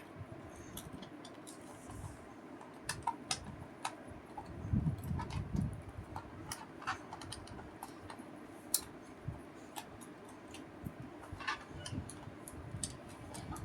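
Scattered sharp clicks and taps of a Zebronics keyboard's plastic parts and screws being handled during disassembly, at an irregular pace rather than a typing rhythm, with a short low rumble of handling about five seconds in.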